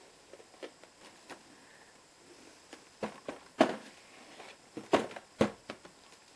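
Cardboard drone box being handled, turned over and set down flat on a wooden floor: scattered light taps and scrapes of cardboard, with a few sharper knocks between about three and five and a half seconds in.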